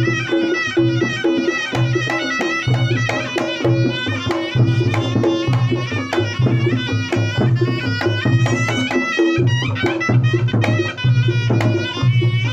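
Reog Ponorogo gamelan music: a slompret reed pipe plays a wavering, ornamented melody over kendang drums beating a steady, repeating rhythm.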